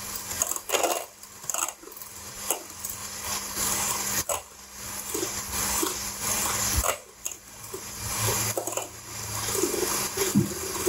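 Electric hand mixer running on high speed, a steady motor hum under the swishing of its beaters whipping egg whites in a stainless steel bowl, the whites still foamy and not yet at stiff peaks.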